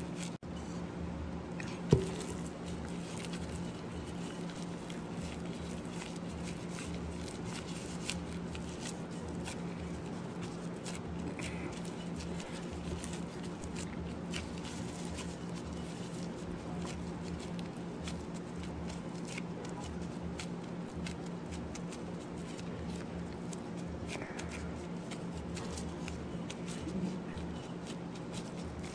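Plastic-gloved hands packing ground pork filling into bittermelon rings over a glass bowl: soft, irregular little clicks and squishes, with one sharp knock about two seconds in. A steady low hum runs underneath.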